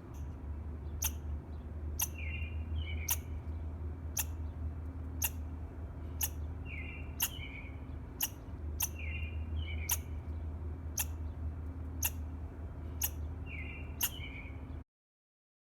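A squirrel chirping: sharp, clipped chips repeated steadily about twice a second, with a short two-part call coming in four times. A steady low rumble runs underneath, and everything cuts off suddenly near the end.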